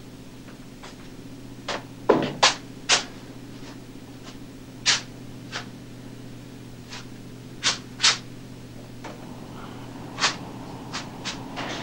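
Scattered sharp clicks and knocks as a cook moves about a ship's galley, several coming in quick runs about half a second apart, over a steady low machinery hum.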